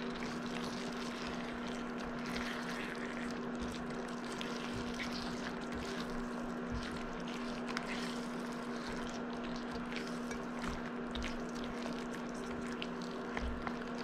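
Pollock and vegetables stewing in sauce in a pot, simmering and bubbling while a spoon stirs them, with small scrapes of the spoon. A steady low hum runs underneath.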